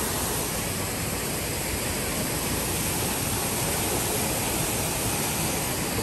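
Steady rush of falling water from an indoor rainforest-exhibit waterfall: an even hiss with no distinct events standing out.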